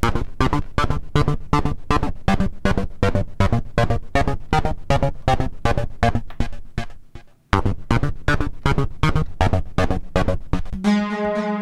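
Modal Electronics Cobalt5S synthesizer playing a factory preset: fast, evenly repeating short plucked notes at about five a second. They break off briefly about seven seconds in and then resume. Near the end they give way to a steady held note.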